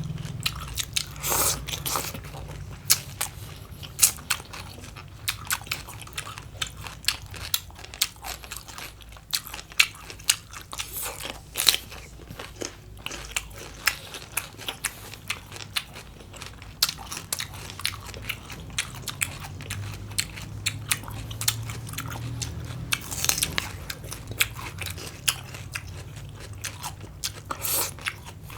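Close-miked crunching and chewing of raw green papaya salad and cucumber: many crisp, irregular bites and crunches, a few much louder than the rest, over a low steady hum.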